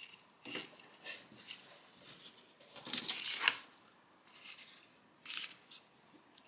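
Folded cotton fabric and a cardboard bow template being handled and slid into place on a work surface: a series of short scraping, rustling handling noises, the loudest about three seconds in.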